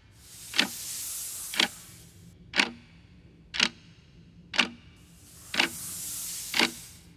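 Weight-driven pendulum clock ticking steadily, one sharp tick a second. Behind the ticks, a soft whooshing hiss swells and fades twice.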